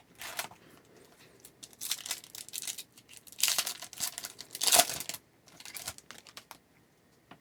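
A 2021-22 Upper Deck Series 1 hockey card pack being torn open, its wrapper crinkling in several short bursts of tearing.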